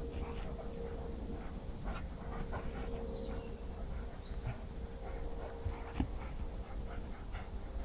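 Dogs panting and scrabbling in dry hay, with scattered rustles and short scuffs as one leaps up at a round bale; a single sharp knock about six seconds in.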